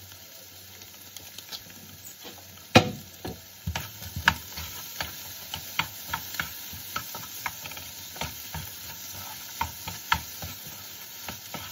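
Ampalaya (bitter melon) and egg sizzling in a nonstick frying pan while a wooden spatula stirs it, knocking and scraping against the pan. The sizzle is steady; the loudest knock comes about three seconds in, then the spatula clicks against the pan every fraction of a second.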